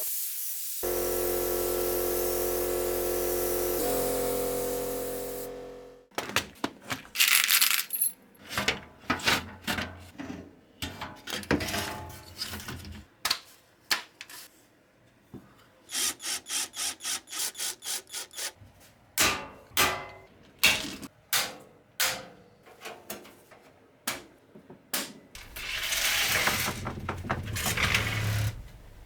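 A held musical chord for about six seconds, cutting off. Then a long run of small hard clicks, taps and knocks from computer parts and screws being handled and fitted, some in quick even runs, with a scraping rustle near the end.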